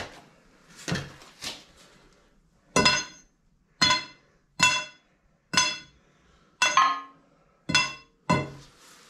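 Hammer blows on steel: a few duller knocks, then seven sharp ringing metal strikes roughly a second apart, each ringing briefly after the blow.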